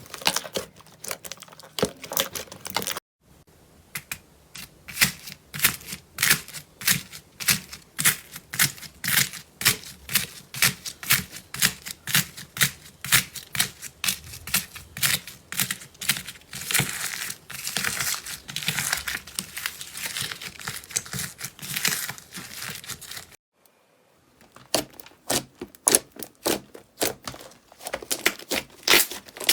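Slime being squeezed and pressed by hand, giving rapid trains of crackling clicks and pops, with two brief breaks where one clip cuts to the next.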